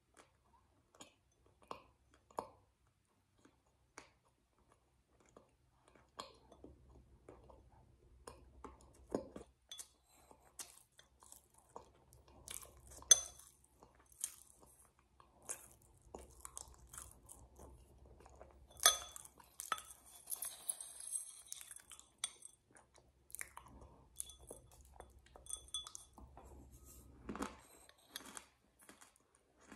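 Close-up mouth sounds of chewing and crunching food, with lip smacking and a metal spoon clinking against a glass now and then. Small irregular crackles run throughout, and two sharp, louder clicks stand out, about 13 and 19 seconds in.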